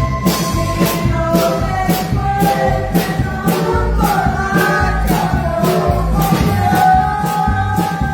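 Keyboard-led dance music with a steady beat: regular drum and shaker hits, a pulsing bass and a sustained melody line that bends in pitch midway.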